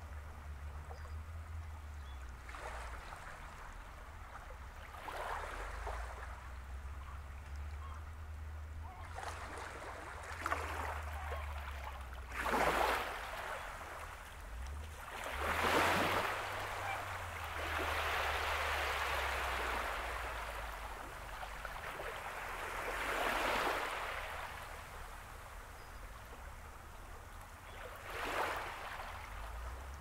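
Small waves washing in on the shore in irregular swells of hiss a few seconds apart, the strongest near the middle, over a steady low rumble.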